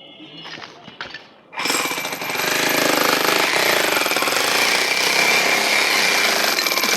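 A large demolition hammer (jackhammer-type breaker) starts up about one and a half seconds in and hammers steadily and rapidly, breaking up a concrete building pillar.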